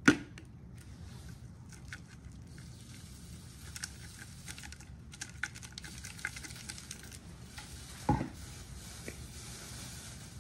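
Seasoning being shaken out of spice shaker bottles: a sharp click at the start, then scattered faint light pattering and ticks of the shaker, and a dull thump about eight seconds in.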